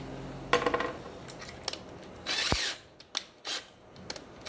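Handling a cordless drill while changing to a larger bit: small metallic clicks and rattles from the chuck and the steel bit, with a dull knock about two and a half seconds in. The drill motor is not running.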